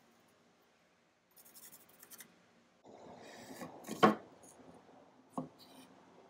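A pencil scratching briefly on a wooden board, then wooden frame pieces sliding and being set down on ceramic tiles, with a sharp knock about four seconds in and a lighter tap a second later.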